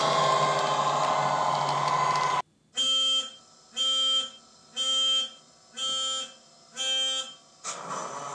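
Model Class 66 diesel locomotive's ESU sound decoder playing through its speaker. First comes its loud running sound as it passes, which cuts off suddenly about two and a half seconds in. Then come five electronic warning beeps about a second apart, and a quieter engine sound starts near the end.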